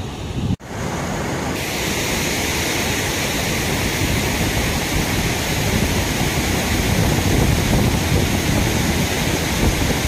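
Steady rush of running water from a forest stream or small waterfall, with wind buffeting the microphone. The sound cuts out for an instant about half a second in, and the hiss turns brighter soon after.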